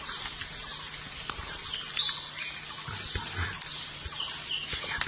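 Birds chirping a few short times over a steady high hiss of forest ambience, with scattered low thumps.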